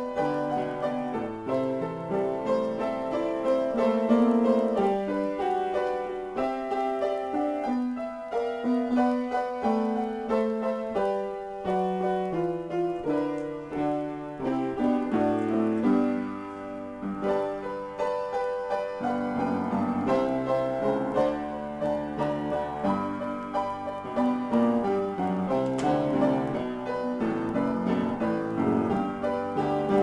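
Solo piano improvisation: an unbroken flow of notes and chords, mostly in the middle register.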